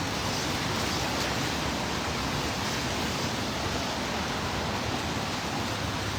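Heavy rain falling on a city street, a steady even hiss, with a low rumble of traffic beneath it.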